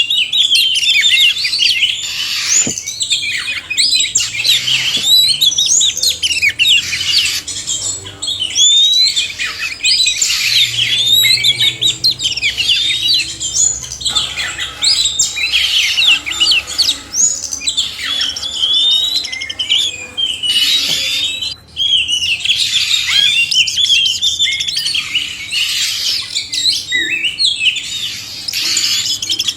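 Oriental magpie-robins (kacer), male and female, singing together: a busy, unbroken stream of overlapping whistles, chirps and trills.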